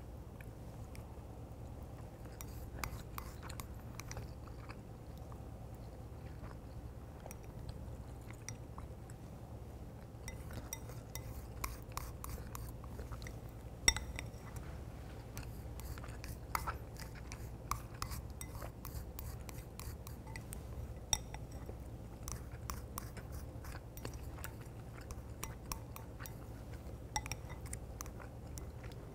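Close-miked chewing of cooked white rice, with many short sharp clicks of chopsticks against a ceramic rice bowl as the rice is scooped into the mouth; the loudest click comes about halfway through.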